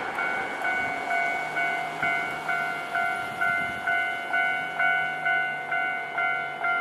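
Japanese railway level-crossing warning bell ringing in a steady, even rhythm, about two strokes a second.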